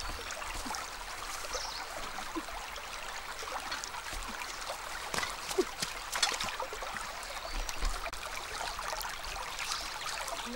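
River water rushing steadily over a shallow, rocky stretch. There are a few light knocks around the middle.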